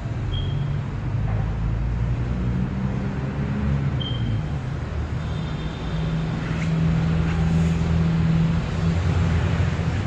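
Motor vehicle engine running steadily amid road traffic noise, a low hum that grows a little louder after the middle, with a few short high-pitched chirps over it.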